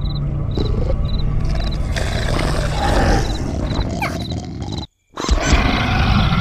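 A loud animal-like roar over a dense low rumble, with short high chirps repeating for the first second and a half. It cuts out suddenly for a moment about five seconds in, then resumes.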